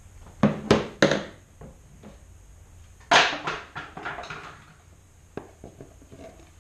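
Plastic Edgit Pro edger disc being handled and fitted against a metal edger shaft: three sharp clacks about half a second in, a louder rattling clatter around three seconds in, then a few light ticks.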